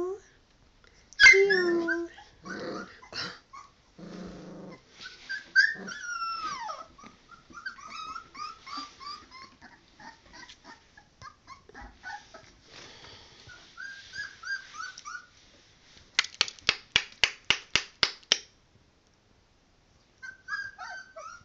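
Three-week-old puppies whining and yipping with short sliding squeals, with a louder cry about a second in and a brief low growl around four seconds in. Later a quick run of about a dozen sharp clicks, about five a second, is followed by a short quiet spell before the whining resumes near the end.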